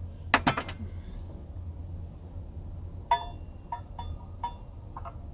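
A sharp knock about half a second in, then from about three seconds in half a dozen short, ringing metallic clinks as a utensil scrapes and taps glaze out of a skillet into a small metal saucepan. A steady low hum runs underneath.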